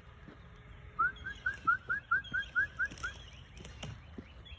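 A person whistling to call a dog: a quick run of about ten short rising whistle notes, about five a second, starting about a second in and lasting about two seconds.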